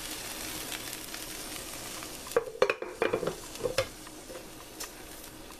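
Hot sautéed onions, bell peppers and garlic sizzling as they are tipped and scraped from a frying pan into a crock pot, the hiss fading. A cluster of sharp clicks and scrapes against the pan comes about halfway through.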